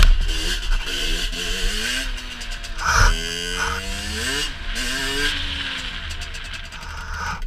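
Rieju MRT SM motorcycle engine running under riding load, its pitch rising and falling several times as it revs up, with a sharp rise and drop about three seconds in. A steady low rumble of wind on the microphone runs underneath.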